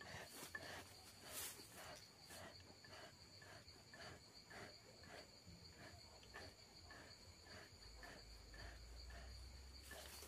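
Faint steady high trill of insects with a regular chirping pulse about twice a second. Near the end, a short hissing puff from the bellows of a bee smoker.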